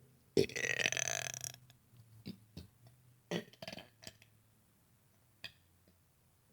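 A long, loud burp lasting about a second, forced out on purpose after swallowing air. After it come several short clicks from the mouth and throat.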